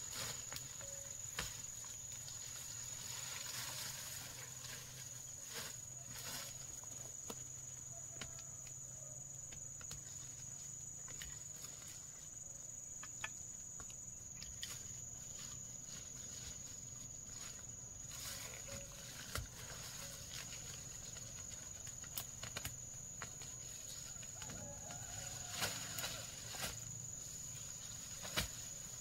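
Insects droning in one steady high-pitched note, with scattered light clicks and rustles over it.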